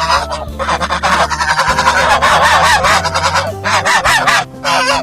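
A flock of geese honking, many rapid overlapping calls, over a background music track.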